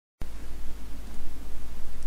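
Wind on the camera microphone: a low, wavering rumble under a steady hiss.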